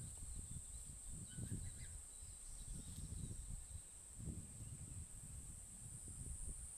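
Steady high-pitched insect drone over a fluctuating low rumble on the microphone, with a few faint chirps in the first three seconds.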